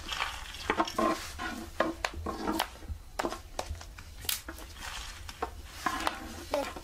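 Long thin wooden rolling pin (oklava) rolling and knocking on a wooden pastry board as phyllo dough is rolled out thin, giving a string of irregular wooden knocks and clicks.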